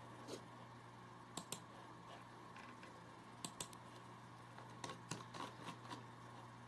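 Laptop keyboard being typed on: scattered soft key clicks, singly and in quick little runs, over a low steady hum.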